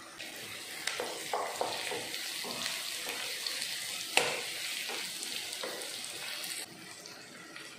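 Sliced onions and curry leaves sizzling in hot oil, stirred with a wooden spatula that knocks and scrapes against the pan now and then. The sizzle cuts off suddenly about a second before the end.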